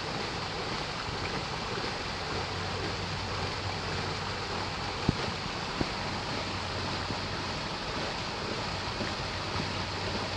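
Steady rush of creek water pouring from PVC pipes onto a homemade water wheel turning below a small dam. Two short knocks come a little after five and six seconds in.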